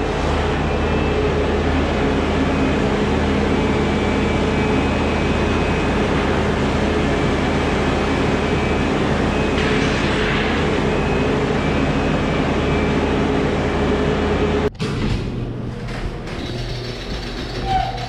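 Skid steer loader's diesel engine running steadily at an even level. About fifteen seconds in, the sound cuts off abruptly and a quieter, different steady hum follows.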